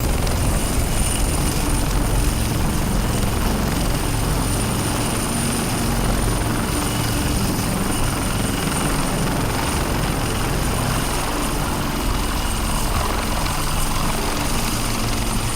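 Navy helicopter running steadily: a dense rotor and engine rumble with a thin, steady high whine over it.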